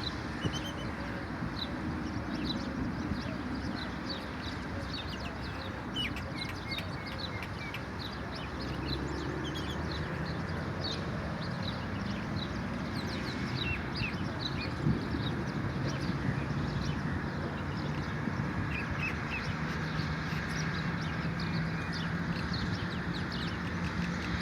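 Birds chirping: many short, high calls, overlapping and continuing throughout, over a steady outdoor background hiss. A low steady hum joins in about a third of the way through.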